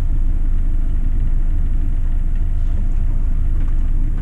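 A sailboat's inboard engine running steadily at low speed, a loud low rumble with a faint steady hum above it, as the boat motors in under power with its sails down.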